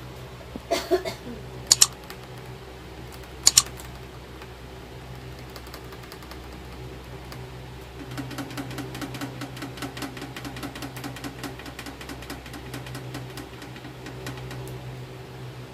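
A few sharp clicks in the first few seconds, then a kitten lapping water at the bowl of a gravity water dispenser: a quick, even run of soft wet clicks, about four or five a second, for some six seconds from about halfway in. A steady low hum lies under it.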